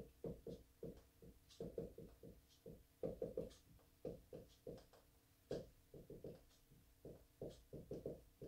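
Marker writing on a whiteboard: a faint, irregular run of short strokes, several a second.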